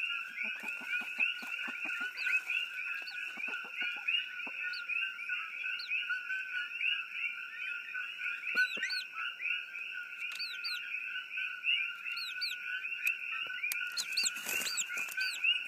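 Dense night chorus of frogs calling steadily, many rapid calls overlapping without a break. Sharper chirps repeat over it, more often in the second half, and a few soft knocks come early on.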